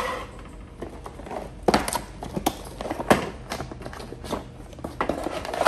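Cardboard packaging and a boxed recorder being handled on a tabletop: several sharp taps and knocks as the box is set down and opened, with light rubbing of cardboard between them.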